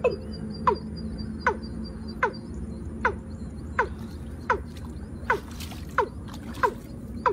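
Watercock (cúm núm) calling: a short falling note repeated at an even pace, about every three-quarters of a second.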